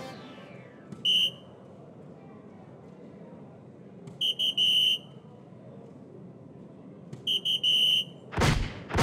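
Electronic soft-tip dartboard scoring sounds: one short high beep as the first dart lands in the single 19, then a rapid run of beeps ending in a longer tone about four seconds in, and the same again about seven seconds in, as darts land in the triple 19. Near the end a loud sweeping electronic sound effect marks the end of the turn.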